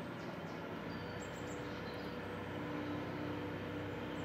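Faint steady outdoor background noise with a low, even hum that grows a little stronger about halfway through, and a few faint high chirps.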